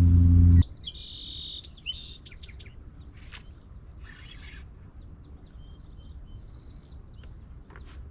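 A loud steady low hum cuts off abruptly just over half a second in. After it, small birds chirp and trill repeatedly over a faint low rumble.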